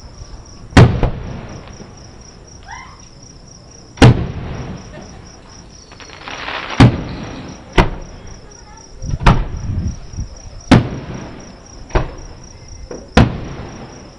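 Aerial fireworks shells bursting: about eight sharp booms at irregular intervals, each trailing off, over steady insect chirping, likely crickets.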